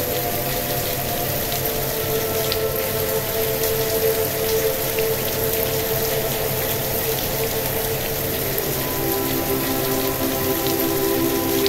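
Steady rain with scattered drop taps, mixed with a soft sustained synth chord that shifts to new notes about eight seconds in. Under it runs a low pulsing hum, the track's delta-wave tone.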